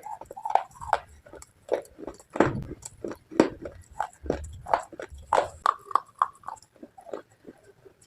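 A person biting and chewing crunchy slate pieces close to the microphone: a fast, irregular run of sharp crunches and cracks.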